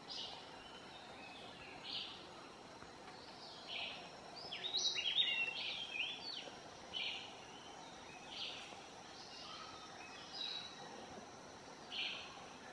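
Geoffroy's spider monkey giving short high-pitched calls about every two seconds, with a quick flurry of several calls a little before the middle.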